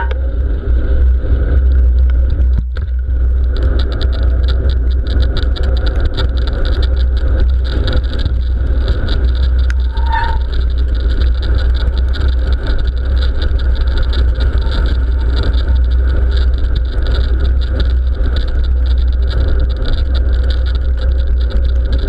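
Mountain bike rolling fast on a wet tarmac road, heard from a handlebar-mounted GoPro in its waterproof housing: a heavy, steady wind rumble on the microphone over the hiss of tyres on wet road. After the first few seconds a dense patter of small ticks sets in, and a brief squeak comes about ten seconds in.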